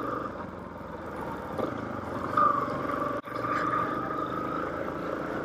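Motorcycle engine running steadily at low road speed, heard from the rider's position, with a brief swell in level about halfway through.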